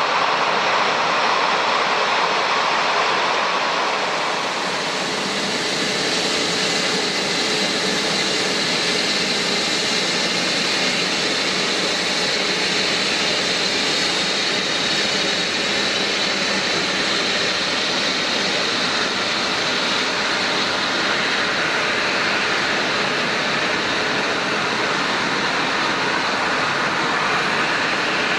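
Jet engine noise from a Japan Airlines Airbus A350's Rolls-Royce Trent XWB turbofans: a steady rushing roar with a high whine that bends slowly up and then down.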